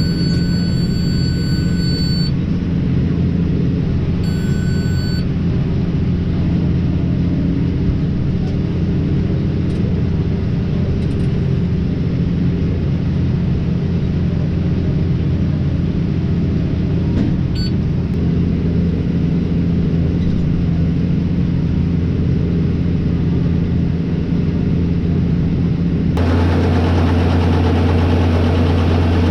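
Tractor engine running steadily under load, with two electronic beeps near the start, the first about two seconds long and the second shorter. About three seconds before the end the engine sound steps up, louder and fuller.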